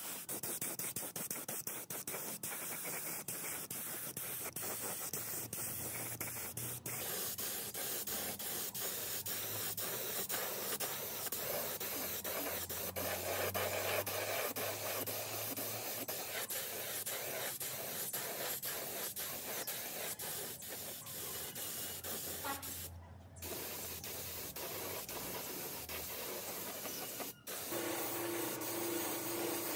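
Steady hissing, rubbing workshop noise of hand work on metal parts, with sudden changes about a quarter of the way in and near the end, where the clip is cut.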